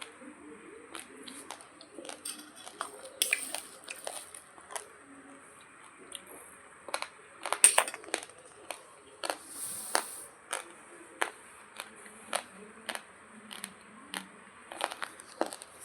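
Uncooked long-grain basmati rice being crunched and chewed: irregular sharp, dry cracks as the hard grains break between the teeth.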